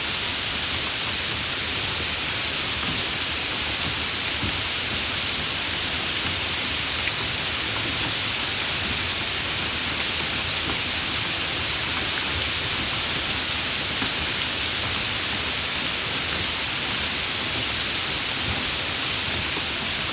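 Steady soft rain falling, an even hiss of many small drops with faint scattered patters, unchanging throughout.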